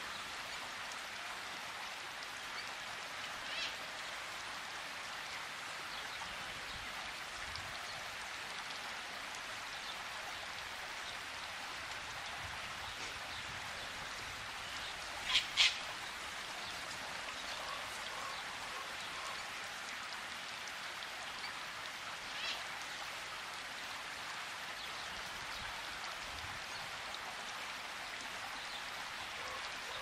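Steady rain hiss, with a few short, sharp bird calls: one faint call a few seconds in, two loud calls close together about halfway, and one more later on.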